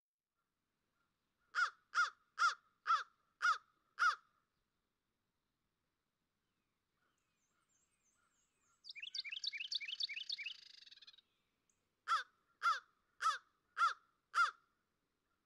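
A crow cawing in two runs of six evenly spaced caws, with a rapid high bird trill lasting about two seconds between them.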